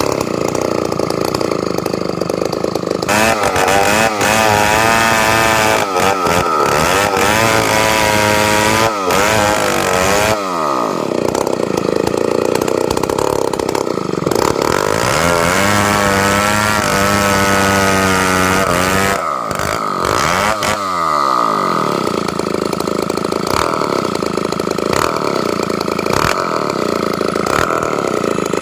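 Two-stroke chainsaw cutting timber. The engine idles, then runs at high revs with its pitch wavering under load for about seven seconds and falls back to idle. It cuts again for about four seconds and drops back to idle near the end.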